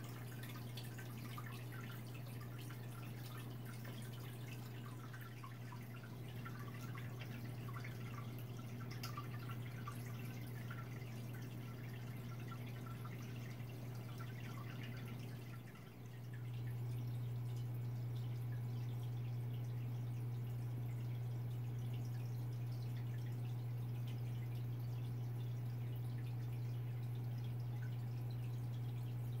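Aquarium pump running with a steady low hum, and water dripping and bubbling at the surface. The hum dips briefly a little past halfway, then carries on louder.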